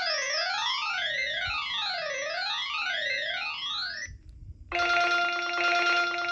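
Samsung SPH-N400 cell phone playing its ringtones through its small speaker. An electronic tone sweeps up and down in pitch about once a second, then cuts off about four seconds in. Half a second later a different ringtone starts, a steady buzzy electronic tone.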